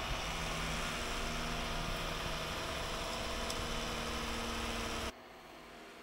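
ECOVACS DEEBOT T20 OMNI robot vacuum-mop running with its suction motor on: a steady rushing hum that cuts off suddenly about five seconds in.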